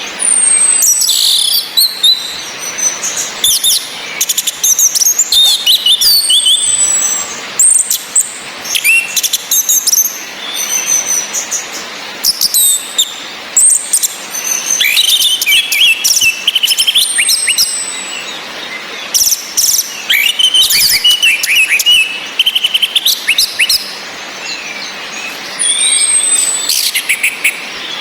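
Orange-headed thrushes calling and singing: the female's sharp 'cis' chirps mixed with male song, heard as a busy stream of rapid high trills and short falling whistles over a steady hiss of rain.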